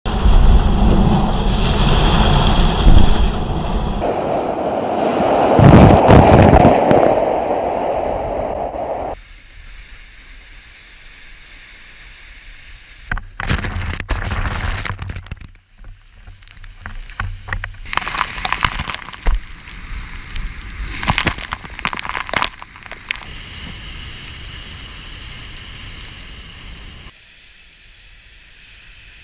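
Seawater rushing and breaking over the deck of a Volvo Ocean 65 racing yacht driving through heavy seas. The wash is heaviest in the first few seconds, with a big crash about six seconds in, then quieter, broken rushes of spray.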